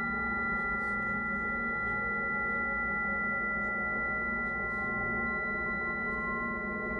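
Ambient space music: a drone of sustained, steady ringing tones with no beat.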